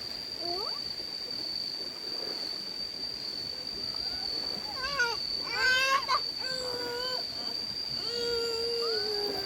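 Insects, such as crickets or cicadas, keep up one steady high-pitched drone throughout. High-pitched children's voices call out several times in the second half, loudest about six seconds in.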